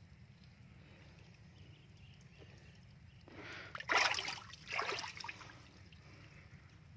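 Grass carp splashing in a fish tank as a hand reaches into the water: a splash builds about three seconds in, is loudest near four seconds, and a second splash follows just before five seconds, over a steady low hum.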